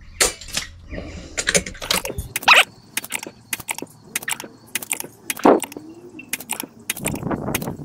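A rapid, irregular series of sharp cracks and clicks from PCP air rifle shooting: shots and the clicks of the rifle being cycled.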